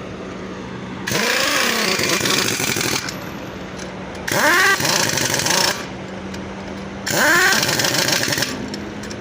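Pneumatic impact wrench running in three bursts of a second or two, each spinning up with a rising whine and then hammering, as wheel nuts on a truck wheel are run on or off. A steady low hum continues between the bursts.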